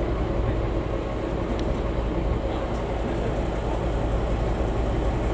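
Diesel engine of a track maintenance motor car running steadily at idle, a low, even rumble.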